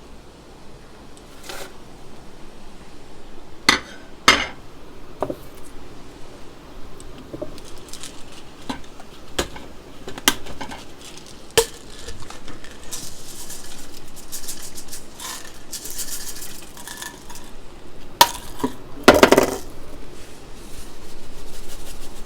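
Kitchen utensils, spoons and containers clinking and knocking against a cooking pot as ingredients are handled and added. The sharp clinks are scattered through the stretch, the loudest a little after 3 seconds in and again near the end, with a stretch of soft hiss in the middle.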